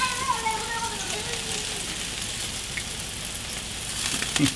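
Meat sizzling steadily on a hot gas grill and in a frying pan on its side burner. A short falling pitched call sounds at the start, and a few sharp clicks come near the end.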